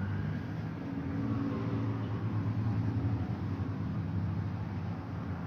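A motor vehicle's engine running, a steady low drone that swells slightly in the middle and eases off near the end.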